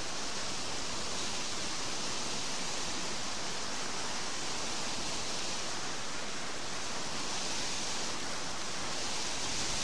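White water rushing and churning where it pours out of concrete culverts into a canal: a steady, unbroken rush of water.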